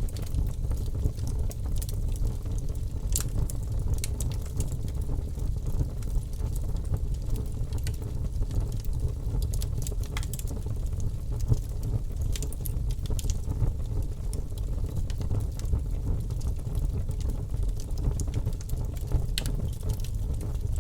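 Bonfire burning with a steady low roar and irregular crackles and pops of burning wood.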